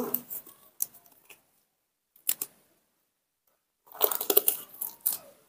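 Rubber gloves being pulled and adjusted on the hands: a run of crinkling, stretching and snapping about four seconds in, after a couple of faint clicks. A baby macaque gives a brief whimper at the very start.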